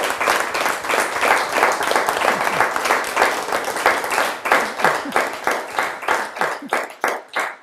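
Audience applauding at the end of a talk. The clapping thins out to a few separate claps near the end, then stops.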